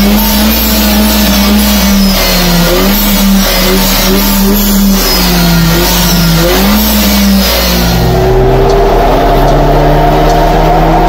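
Car sounds over background music with a stepping beat. About eight seconds in, the BMW 1 Series F20's engine is heard under load on a chassis dyno, its pitch rising steadily through a pull after a Stage 1 remap.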